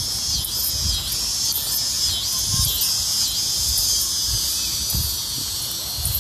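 Cicadas in the trees: a loud, whining buzz that swells and fades about twice a second.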